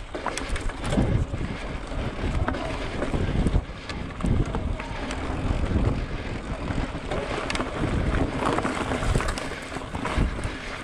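Wind buffeting the microphone: an uneven low rumble that swells and drops, with a few scattered clicks.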